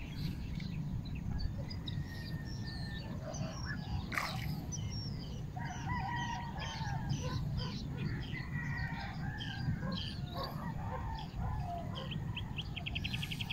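Roosters crowing and other birds calling in scattered short calls, with a quick trill of about ten notes a second near the end, over a steady low rumble.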